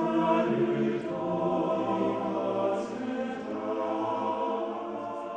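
Slow documentary background music of long held, choir-like chords, shifting to a new chord about a second in.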